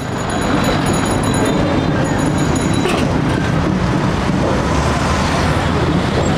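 Steady rumble of busy city street traffic, fading in at the start, with a few thin high tones through the first three seconds.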